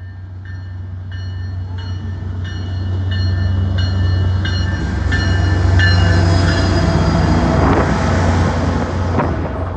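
MBTA GP40MC diesel locomotive passing close by with its train, its 16-cylinder EMD 645 engine growing louder to a peak about six seconds in, with wheel noise. A bell rings about twice a second, fading out a little after the loudest point.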